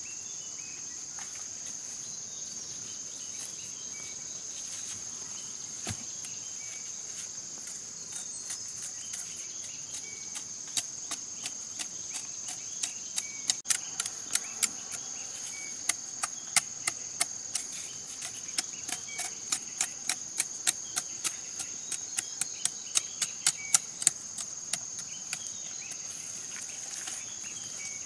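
Steady high insect chirring throughout. From about ten seconds in until near the end, a run of sharp chops, two or three a second: a machete blade striking giant taro corms as they are trimmed.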